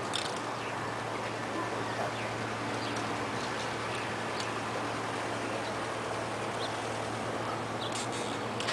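Steady outdoor background noise over a constant low hum, with a few faint clicks and knocks near the start and again near the end.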